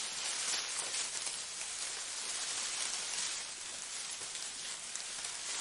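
Steady, even hiss of rain falling, with no single drops standing out.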